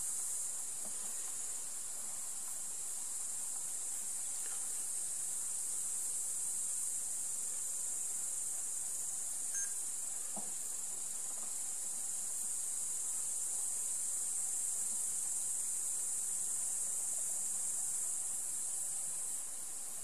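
Steady, high-pitched chorus of crickets stridulating without a break.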